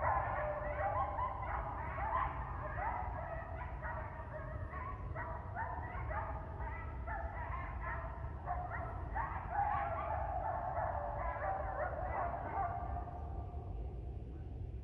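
A coyote pack's chorus of overlapping howls and yips, thinning out and fading near the end, over a steady low rumble. The pack is apparently answering a member that had been separated from it.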